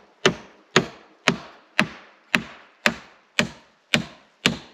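Claw hammer driving a nail through a wooden mount into a log wall: about ten even blows, roughly two a second, stopping just before the end.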